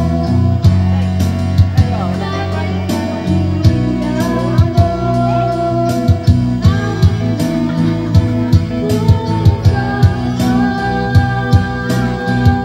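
A videoke machine's backing track playing loud: guitar-led music with a steady beat.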